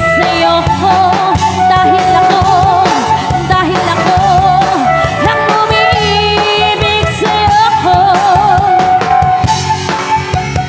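Live band playing a pop song: a drum kit keeps a steady beat under bass and a held lead melody with vibrato.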